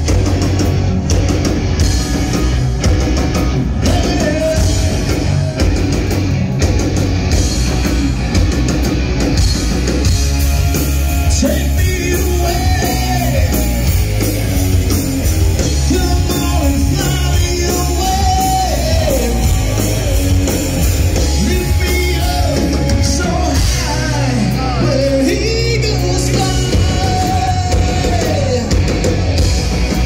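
Live rock band playing loud electric guitars and drums, with a singer's voice prominent from about ten seconds in.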